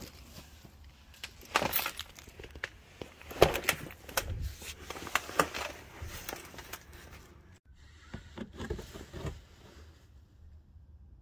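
Rustling cloth and handling noise with scattered sharp clicks and knocks, loudest about three and a half seconds in. After a brief dropout about seven and a half seconds in, more rustling and knocks follow, then die away near ten seconds.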